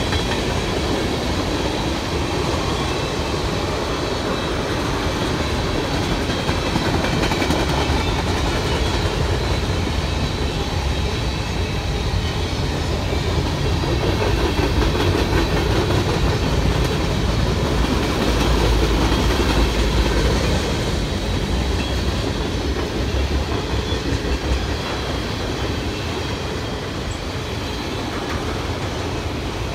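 Freight cars of a mixed manifest train rolling past on steel wheels: a steady rumble with wheels clattering over the rails, swelling a little about two-thirds of the way through.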